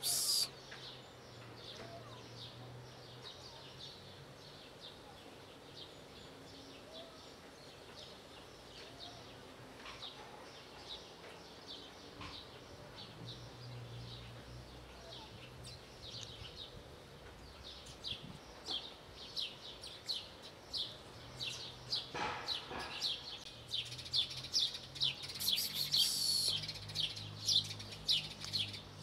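Small birds chirping: scattered short, high chirps at first, then a quick run of about two or three chirps a second through the second half.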